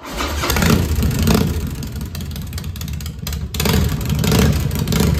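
Harley-Davidson Dyna V-twin engine running loud through freshly fitted stainless slash-cut drag pipes, revved up and back down several times with the throttle.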